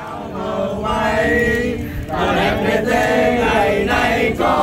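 A group of people chanting together in unison, many voices at once, with a short break about two seconds in.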